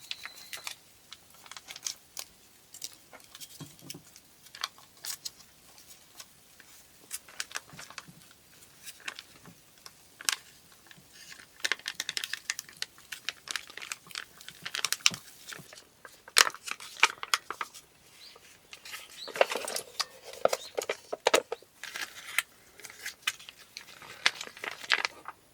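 Irregular crinkling and crackling of something being handled, in bursts of sharp clicks that come thickest about halfway through and again near the end.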